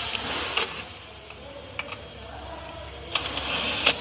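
Metal hand tools clicking and clinking against the car's underbody as a wrench is worked on a bolt: a few sharp clicks, one about half a second in, one near the middle and a quick cluster near the end, over a steady low hum.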